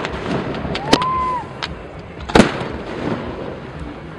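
Aerial firework shells bursting in the sky: three sharp bangs, the loudest about two and a half seconds in, with a few faint crackles between them.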